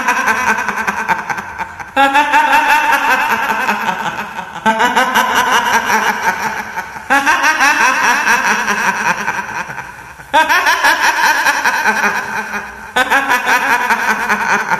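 High-pitched woman's cackle in the manner of the kuntilanak ghost laugh, repeated in bouts, a new one breaking out every two to three seconds, each starting abruptly and fading away.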